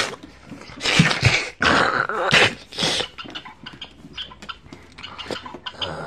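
A person growling and snarling in short, harsh bursts as the voice of a monster squirrel toy, followed by lighter clicks and rustles.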